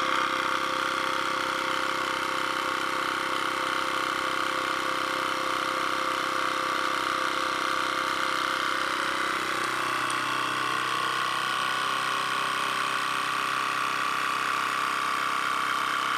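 Kitchen vacuum sealer's pump running steadily on its normal-speed, dry-food vacuum-seal cycle, drawing the air out of a bag so the plastic shrinks tight around the food. A low part of the hum drops in pitch about ten seconds in.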